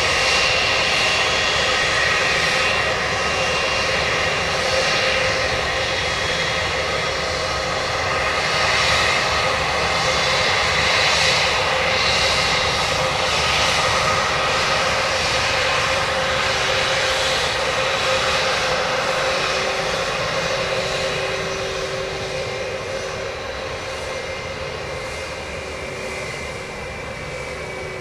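Airbus A320's twin IAE V2500 turbofan engines at taxi power: a steady jet whine over a rushing noise, fading gradually over the last several seconds as the airliner taxis past.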